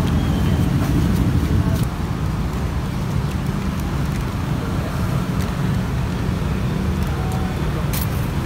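Steady rumble of road traffic passing a busy street corner, easing slightly about two seconds in, with a couple of sharp clicks near the end.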